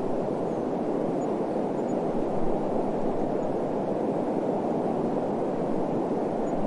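Desert wind blowing as a steady, even rushing noise without gusts or breaks.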